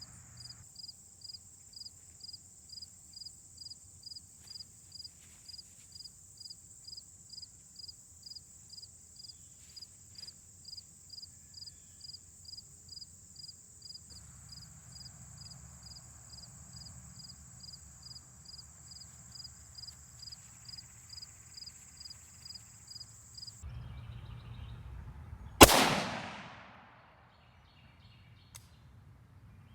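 A single shot from a 5.45x39 rifle firing a Wolf Military Classic 55 gr hollow-point round for a velocity test, a sharp crack about 26 seconds in whose echo fades over a second and a half. Before it, a steady high-pitched chirping pulses about three times a second and stops suddenly a couple of seconds before the shot.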